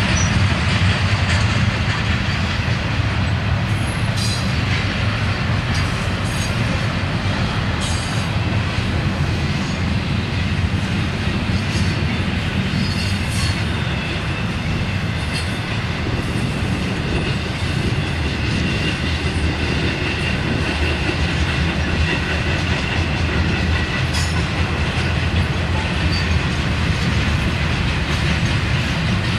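Intermodal freight train's double-stack container cars and trailer flatcars rolling past, steady rumble of steel wheels on the rails with scattered clicks. A faint high wheel squeal comes and goes in the second half.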